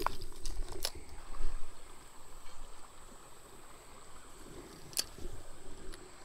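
Shallow creek water running steadily, with a few sharp clicks, one at the start, one just under a second in and one about five seconds in, and a low thump about a second and a half in.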